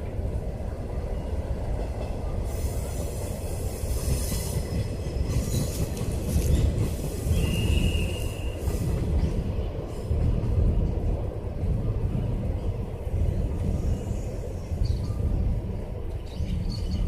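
A train passing on the track: a steady low rumble, with stretches of high hiss in the first half and a brief high squeal about seven seconds in.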